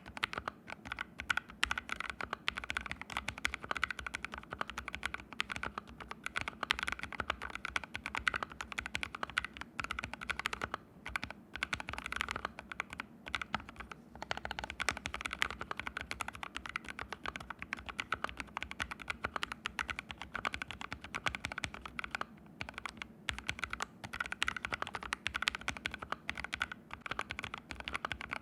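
Steady, fast typing on an ABKO AR61 mechanical keyboard with fully lubricated Haimu Sea Salt switches, the keyboard sitting directly on the floor with no mat under it. The typing pauses briefly about 11 and 14 seconds in.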